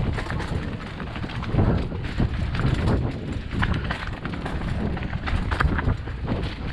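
Mountain bike clattering over a rough trail: irregular knocks and rattles from the bike, over a steady low rumble of wind on the microphone.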